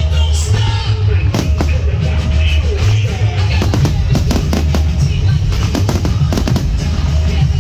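A barrage of aerial fireworks shells bursting, many sharp bangs in quick succession, over loud music with a drum beat.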